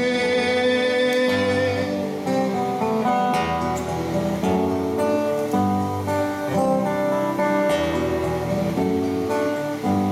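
Solo acoustic guitar playing a slow instrumental passage, its chords changing about once a second over a low bass line.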